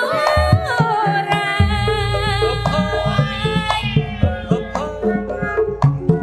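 Sundanese gamelan accompaniment for wayang golek: a female singer (sinden) sings a long wavering line into a microphone over hand-drum strokes and steady instrument tones. A deep sustained tone comes in about one and a half seconds in.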